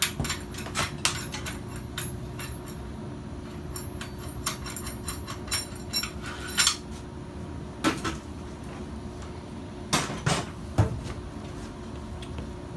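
Metal tools and parts clinking and clanking as they are handled, with a few heavier metal knocks about eight and ten seconds in, over a steady low hum.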